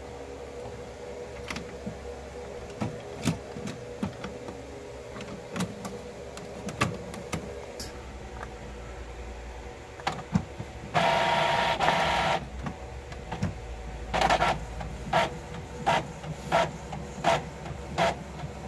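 Epson L6170 inkjet printer starting a test print: about a second and a half of steady mechanical running as it starts up and draws in a sheet, then a regular back-and-forth sound a little faster than once a second as it prints. Before that, scattered plastic clicks from handling the printer and pressing its control-panel button.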